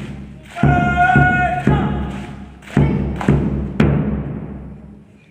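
Bass drum struck in two groups of three beats, about two beats a second, each beat ringing on. A drawn-out shouted drill command sounds over the drumming about a second in.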